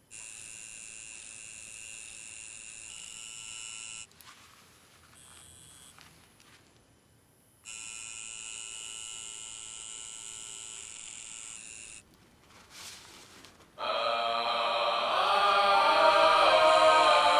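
Electric tattoo machine buzzing with a steady high whine. It stops about four seconds in and starts again for about another four seconds. Near the end, loud music with chanting voices comes in.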